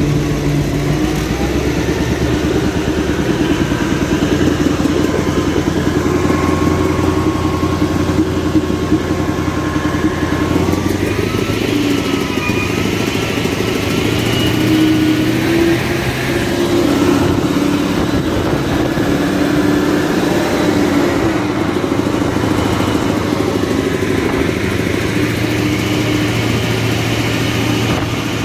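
Caterpillar 988F2 wheel loader's diesel engine running steadily and loudly, its speed shifting a little around the middle.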